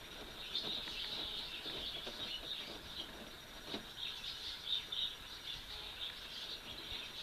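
Faint, irregular rustling and snuffling of a French Bulldog–Beagle cross puppy burrowing and nosing into blankets and a duvet.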